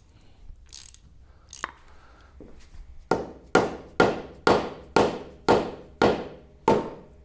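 Mallet blows on the metal front end of an Economy Power King tractor: a steady run of strikes about two a second, each ringing briefly, beginning about three seconds in after a few light clicks.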